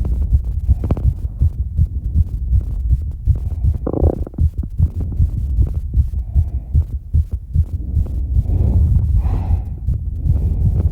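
Fast heartbeat at about 200 beats a minute, the rapid beating of a heart recovering from exercise, with heavy breaths coming through in the second half.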